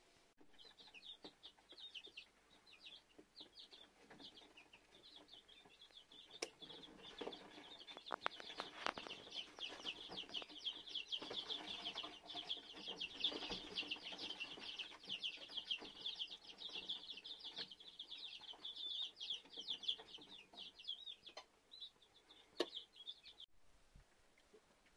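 Chicks peeping inside an egg incubator: a dense chorus of short, rapid high cheeps that swells in the middle and stops abruptly near the end, with a few sharp clicks.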